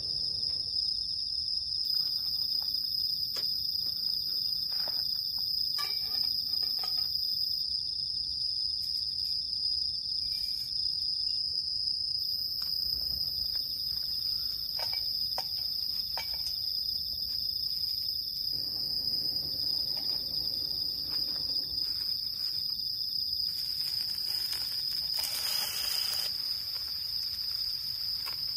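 Night insects trilling in one continuous, steady high-pitched note, with a few faint clicks and knocks from cookware being handled.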